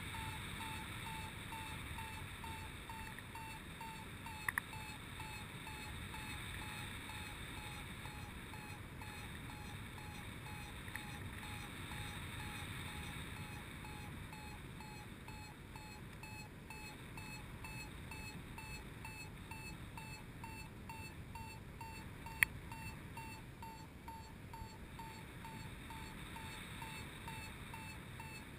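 Paragliding variometer beeping at one steady pitch, about two to three beeps a second, the sign that the glider is climbing in lift. Wind rushes past the microphone, and there are a couple of sharp clicks.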